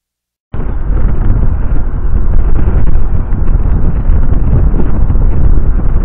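Loud wind buffeting the camera microphone on a ferry's open deck, starting abruptly about half a second in after silence and holding at a steady level.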